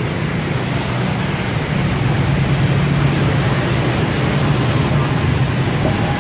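Steady city street traffic noise, a constant low hum of passing vehicles.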